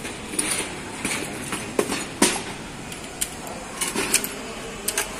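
A long-armed hand rivet gun being worked against a steel ceiling frame, giving a string of irregular sharp metallic clicks and clanks.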